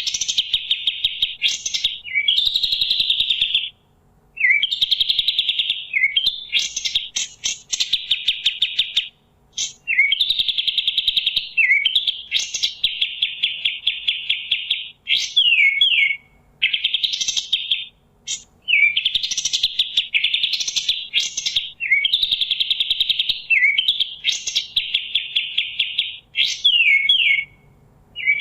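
Kapas tembak songbird singing on and on: quick rattling runs of repeated notes, mixed with sharp falling whistles, in phrases of one to three seconds split by short pauses.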